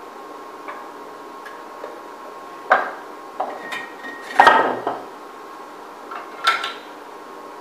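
Thin brass banjo tone ring and metal spinning tools clanking and clinking as they are handled at the lathe: about five separate metallic knocks with brief ringing, the loudest a little past the middle.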